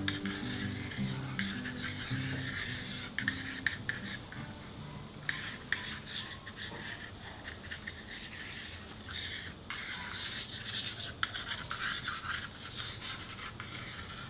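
A thin drawing stick scratching and rubbing across paper in quick, irregular strokes as lines are drawn.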